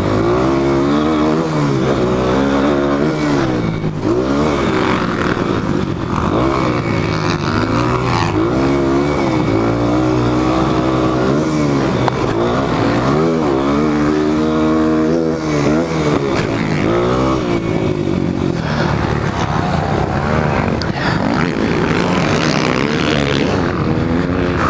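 Honda CRF230F's air-cooled single-cylinder four-stroke engine under hard riding, revs rising and falling over and over as the throttle is opened and closed.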